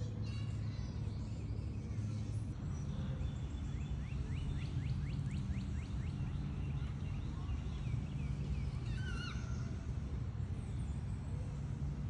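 Outdoor ambience: a steady low rumble with birds calling over it. A fast trill of about ten quick falling notes comes a few seconds in, and a wavering call follows about three-quarters of the way through.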